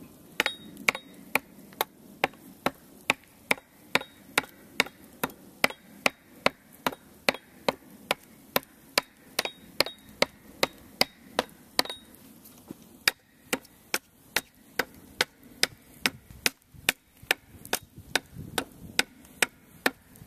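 Hatchet chopping down a red oak bow stave to hew it to shape: a steady run of sharp wooden chops, a little over two a second, with a brief pause about halfway.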